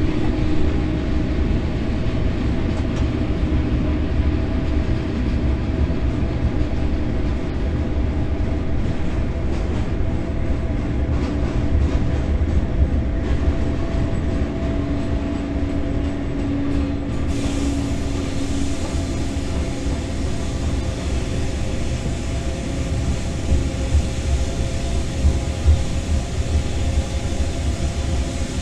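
Electric locomotive heard from inside its driver's cab while running along the line: a steady low rumble of wheels on rail with a humming tone from the traction equipment, and a few louder knocks near the middle and near the end.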